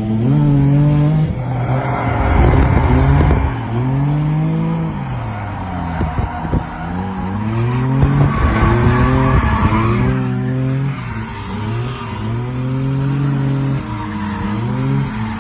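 Drift car's engine revving up and falling back over and over as the throttle is worked through a drift, with tyres skidding loudly twice, about two and eight seconds in.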